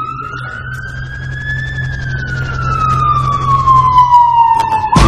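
A siren wailing once slowly, rising in pitch for about two seconds and then falling for the rest, growing louder over a low steady hum. It breaks off as a loud beat comes in at the very end.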